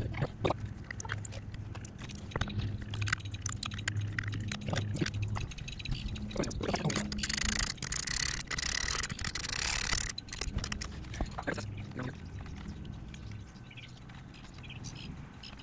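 Small metal clicks and knocks of a wrench and hardware as the taillight and blinker bracket is bolted onto a Honda Ruckus scooter. Under it runs a low hum, and a few seconds of hiss come near the middle.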